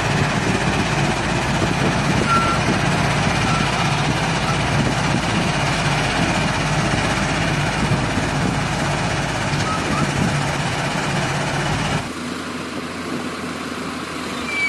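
Diesel engines of a JCB wheel loader and a Mahindra tractor running close by, a steady heavy hum while the loader tips sand into the tractor's trolley. The sound drops to a lower level about twelve seconds in.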